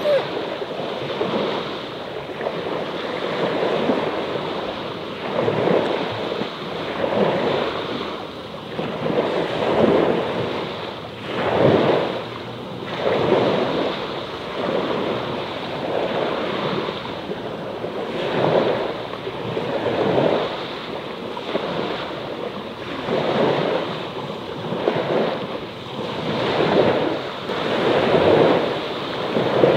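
Small sea waves washing onto the shore, swelling and falling back in a rhythm of about one wash every second or two.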